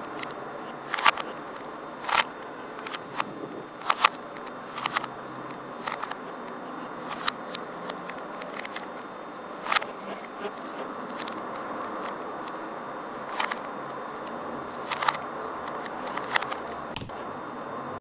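Rubik's cube being twisted by hand: irregular sharp plastic clicks as its layers turn, every second or so, over a steady hiss.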